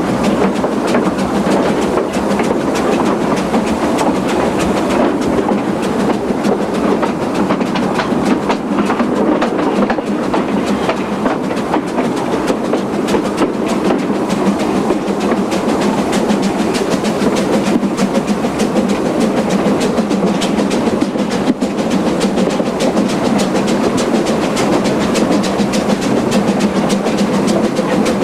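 Narrow-gauge steam train running steadily behind the 0-6-2 well tank locomotive "Graf Schwerin-Löwitz", heard from the carriage right behind its tender: a continuous rumble of the moving train with frequent wheel clicks on the rails.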